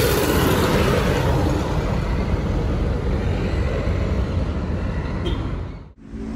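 Steady, loud rumbling noise with a deep low end, cutting off abruptly near the end.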